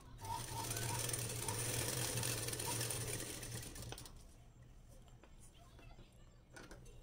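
Durby domestic sewing machine running steadily while stitching fabric. It stops about four seconds in, and a few faint clicks follow.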